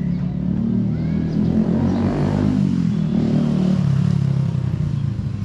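Motorcycle riding past with its engine running, the engine note shifting in pitch as it goes by.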